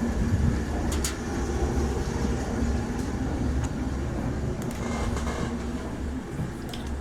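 Railway train running along the track: a steady low rumble with a few sharp clicks.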